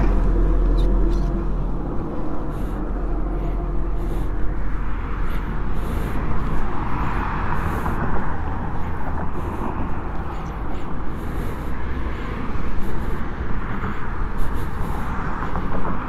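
Honda CB500X parallel-twin with an aftermarket Mivv Suono exhaust idling, then shut off about one and a half seconds in. A steady outdoor rumble and hiss with small handling clicks follows.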